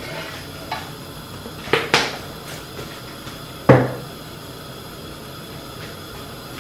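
Wooden spatula knocking against a nonstick wok while oil is spread around the pan: a few separate knocks, the loudest about two seconds in and another sharp one with a short ring near four seconds, then only a faint steady background.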